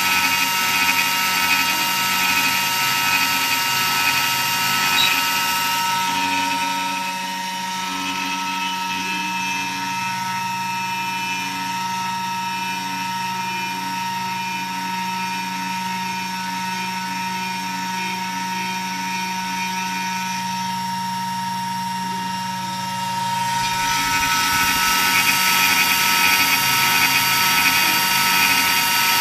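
300 W spindle of a DIY CNC router running with a steady whine while its 3 mm flat end mill cuts a 1 mm deep slot in a wooden board. The sound is louder near the start and again near the end, softer through the middle.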